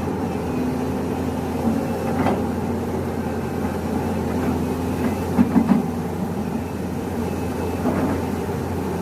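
Steady mechanical rumble with a low hum, broken by a few short knocks or clicks, the loudest a quick cluster about five and a half seconds in.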